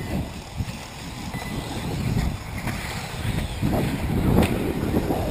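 Wind buffeting the microphone: an uneven, gusty rumble that grows stronger from about halfway through. There is a faint click about four seconds in.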